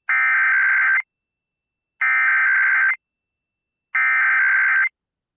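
Emergency Alert System SAME data bursts: three one-second bursts of harsh, warbling two-tone digital data, about a second of silence between them. Bursts this long carry the coded header that opens an EAS alert.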